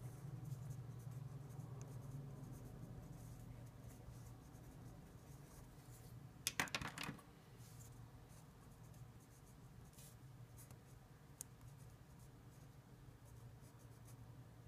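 Felt-tip marker scratching on paper in short, faint strokes, with a louder stretch of scratching about six and a half seconds in. A steady low hum sits underneath.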